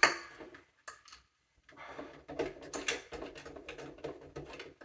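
Clicks and clatter from a rotary dial telephone being handled and dialled: a sharp knock at the start, a brief pause, then a run of uneven mechanical clicks.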